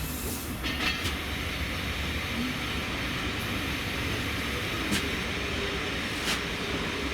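Railway train running on the track: a steady rumble and rush with a few short sharp clicks from the wheels over rail joints.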